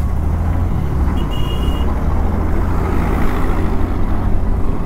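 Motor scooter being ridden, with its engine and road noise running steadily underneath. A short high-pitched tone sounds about a second in.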